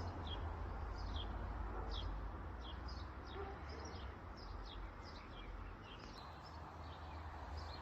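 Small birds chirping, a string of short falling chirps repeated every half second or so, over a low steady outdoor rumble.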